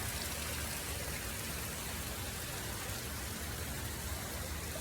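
Garden fountain water falling and splashing steadily, an even rushing hiss with no pauses.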